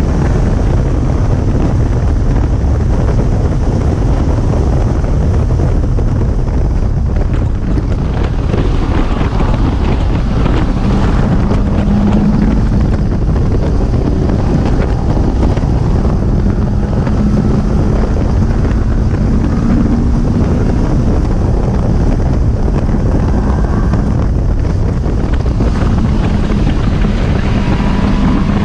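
Lotus Elise 111S's Rover K-series four-cylinder engine driven hard around a race track, mixed with heavy wind noise on the onboard microphone. A steady low drone comes and goes a few times from about twelve seconds in.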